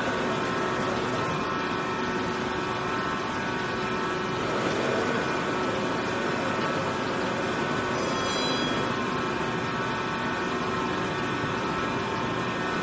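Tyre bead-ring cutting machine running: the cutting head works into the bead of a large tyre turning on the turntable, a steady mechanical noise with several whining tones, and a brief high-pitched squeal about eight seconds in.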